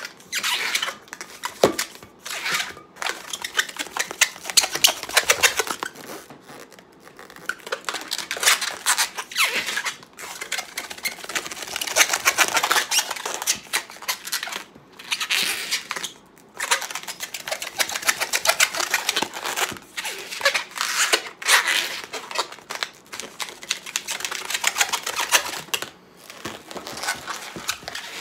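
Long latex modeling balloon squeaking and rubbing under the hands as it is twisted and bent, in stretches of a few seconds with short pauses between them.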